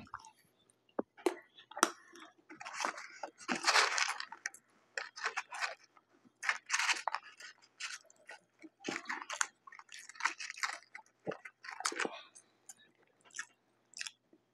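A person chewing potato chips close to the microphone: irregular crunches throughout, loudest a few seconds in.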